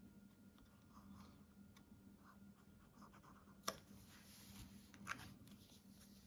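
Near silence: faint rubbing of a hand pressing and smoothing cardstock, with one short click about three and a half seconds in.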